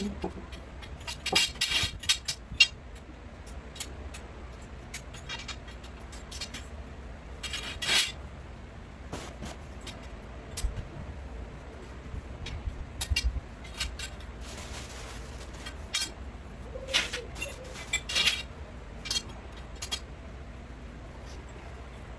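Metal tent-frame poles and connectors clinking and rattling as they are handled and fitted together, in scattered bursts several seconds apart.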